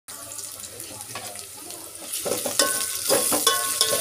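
Onions and ginger-garlic paste sizzling in hot oil in an aluminium pot. A little over two seconds in the frying grows louder as green chillies go in and a spoon stirs and scrapes against the pot.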